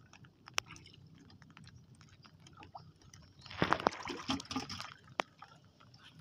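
Water lapping and sloshing against the hull of a small wooden outrigger boat, with scattered sharp knocks and a brief louder burst of splashing and knocking about three and a half seconds in.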